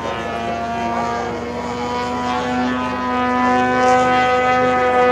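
Motor and propeller of a radio-controlled aerobatic model airplane in flight, a steady droning tone that gets louder and rises a little in pitch about three seconds in.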